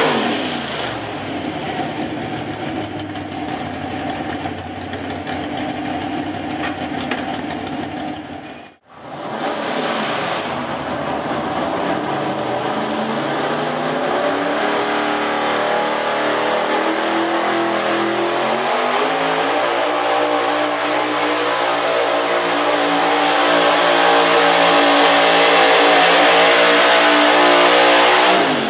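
Gas big-block V8 engines of Pro Street pulling trucks. The first engine's pitch drops as it comes off full throttle at the start; after a brief break a second truck's engine runs steadily, then from about two-thirds of the way through climbs in pitch under full throttle while pulling the weight-transfer sled, falling away again right at the end.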